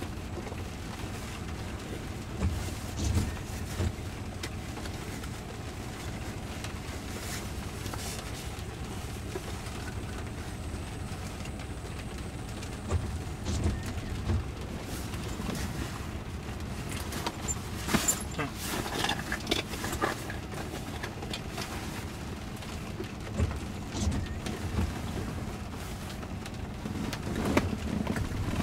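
Inside a rain-wet Jaguar I-PACE electric car standing still: a steady low cabin hum, with the windshield wipers sweeping about every five seconds. Near the end the rumble grows as the car starts to pull away.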